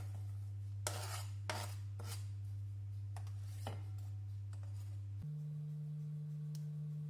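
A kitchen knife scraping minced garlic off a cutting board into a glass bowl: a few short scrapes and taps in the first four seconds. A steady low sustained tone of background music runs underneath and steps up to a higher note about five seconds in.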